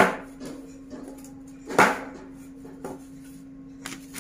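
Two sharp clinks about two seconds apart as a new two-burner glass-top gas stove and its packaging are handled, over a steady low hum.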